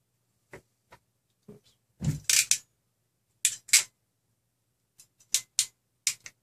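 Small parts and tools being handled on a tabletop: a run of sharp clicks and taps, with a heavier knock about two seconds in.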